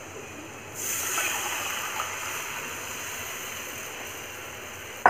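Besan (gram flour) batter poured into a pan of hot oil and fried onion, hissing and sizzling as it hits the oil. The sizzle starts about a second in and slowly dies down, and a sharp knock comes right at the end.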